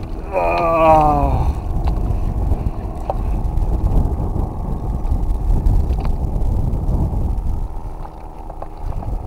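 Steady low rumble of wind on the microphone with a few small clicks and knocks, from a kayak on the water. About half a second in, a brief voice sound falls in pitch.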